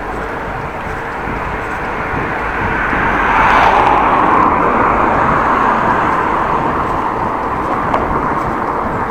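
Steady rushing noise of riding a bicycle on the road, wind on the action camera's microphone mixed with tyre and traffic noise, swelling for a couple of seconds around the middle and then easing.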